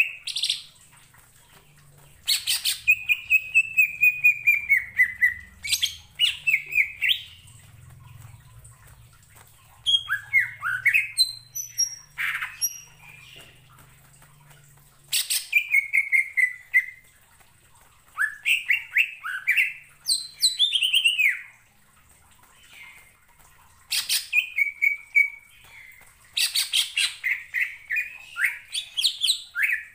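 Male greater green leafbird (cucak ijo) singing loudly in phrases of a few seconds each: rapid sharp notes mixed with falling whistled slurs. Short pauses of one to two seconds separate the phrases.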